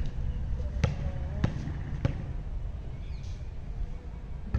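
Basketball bounced on a concrete court: three sharp bounces about half a second apart in the first two seconds, then only faint background.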